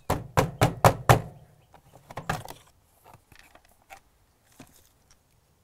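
The access cover of a Fujitsu mini-split outdoor unit being pulled off by hand: a quick run of sharp clicks and knocks in the first second, a few more about two seconds in, then faint handling ticks.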